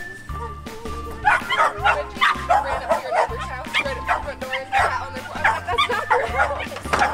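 A dog barking in rapid, repeated yappy barks, starting about a second in, over background music with a steady beat.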